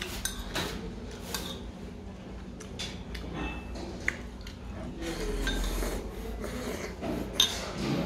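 Close-up eating sounds of a person eating spicy beef soup (yukgaejang) with noodles: slurping and chewing mouthfuls, with a few sharp clicks of a metal spoon against a ceramic bowl, the loudest near the end.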